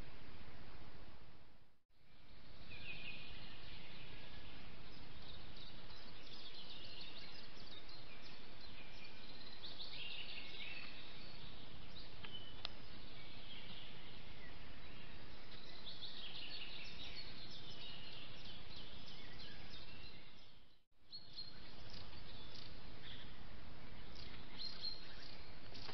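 Woodland birds singing, many short chirps and trills, over the steady hiss of a trail camera's microphone. The sound fades out and back in briefly twice, about two seconds in and about twenty-one seconds in.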